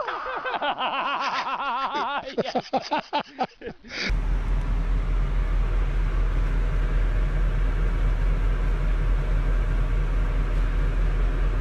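Laughter and an excited voice for about four seconds. Then it cuts suddenly to a steady low rumble with a hiss over it.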